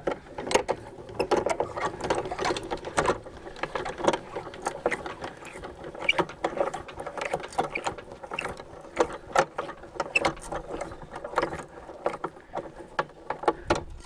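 Hand-cranked winch on a manual portable bandsaw mill turning to set the saw head's height over the log. Its gears and lift chain give a continuous run of irregular metallic clicks and rattles.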